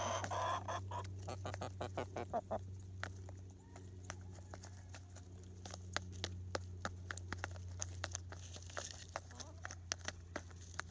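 Backyard pullets pecking quickly at wet gruel in a hand-held carton, a rapid, irregular run of sharp taps and clicks of beaks on the food and container, with a few low clucks in the first two seconds or so.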